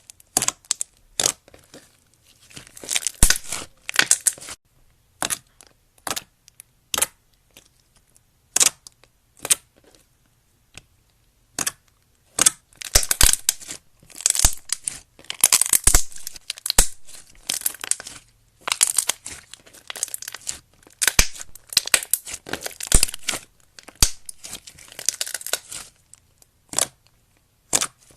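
Slime being squished and stretched, making crackling, popping sounds in bursts with short pauses between them. Through the middle it thins out to scattered single pops before the busier crackling returns.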